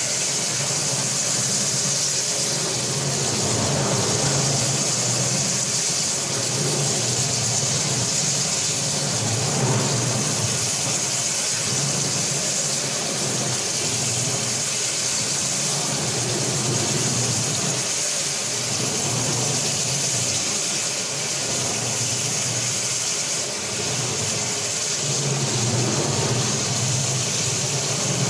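Electric marble floor grinding and polishing machine running steadily, its rotating head grinding the wet marble floor: a steady low motor hum under a bright, even hiss.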